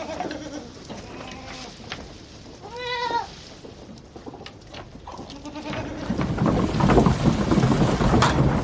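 Goats bleating, a few separate short calls, the loudest about three seconds in. From about six seconds in, a loud low rushing noise takes over.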